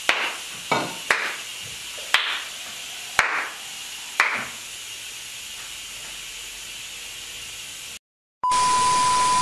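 Edited sound effects: about six irregular knocks, each with a short hiss, over a steady hiss. After a brief silence, a loud steady beep over static begins and runs for nearly two seconds.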